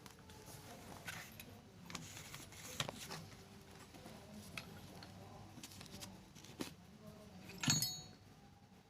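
Small metallic clicks and taps from tools and parts being handled on a sewing machine during repair, with one louder clack near the end.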